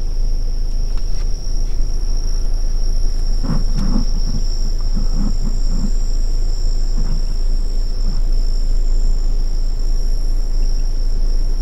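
Night insects trilling steadily in a high, unbroken tone over a constant low rumble, with a faint low murmur a few seconds in.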